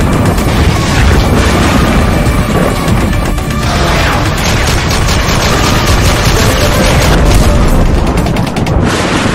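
Action-style intro sound effects: deep booms and bursts of rapid gunfire over music, with the rapid fire densest through the middle.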